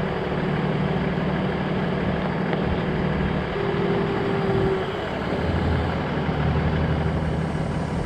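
A vehicle engine idling steadily, a low hum whose note shifts slightly about five and a half seconds in.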